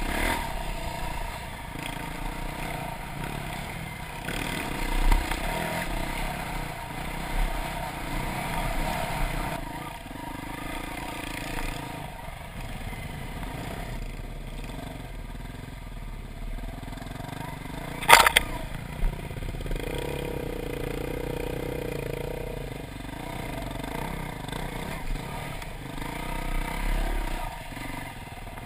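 Off-road dirt bike engine running under changing throttle on a rough trail, heard from the rider's helmet, its pitch rising and falling. A single sharp knock comes about two-thirds of the way through.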